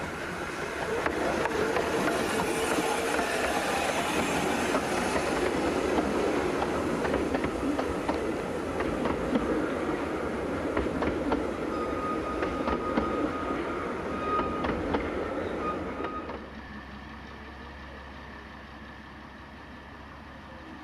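15-inch gauge passenger train rolling past close by, its carriage wheels clicking over the rail joints, with a thin steady squeal of wheels or brakes for the last few seconds of the passing. About sixteen seconds in it cuts off suddenly, leaving the quieter low steady hum of a small diesel-hydraulic shunting locomotive.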